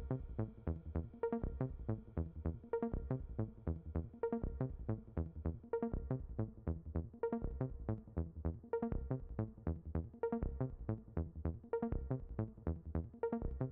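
Electronic background music with a quick, steady beat.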